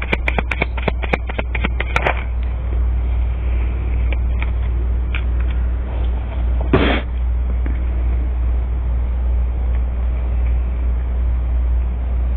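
Cards being shuffled by hand: a quick run of light clicks for about the first two seconds, then a few single clicks and a short rustle about seven seconds in. A steady low hum runs underneath.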